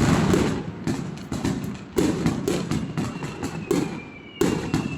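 Fireworks going off in quick, irregular succession: two or three bangs a second, each with a booming low end. A thin high whistle joins in about three seconds in.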